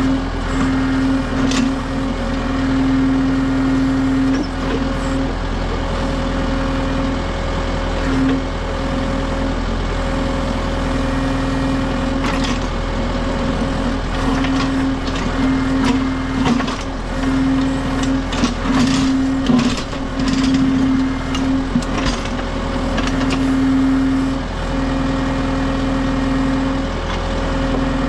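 Kubota M6060 tractor's diesel engine running steadily while its LW-6 backhoe digs, with a drone that swells and eases as the hydraulics work. Sharp clanks and knocks of the bucket striking rocks come through, most of them in the second half.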